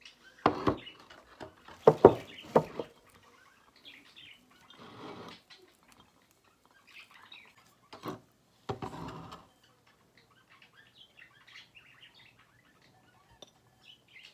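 Handling of ceramic dishes and loose elderberries: several sharp knocks and clatters of a plate against a bowl in the first few seconds, then quieter rustling and scraping of berries being stripped and slid from a plate into the bowl. Faint high chirps follow near the end.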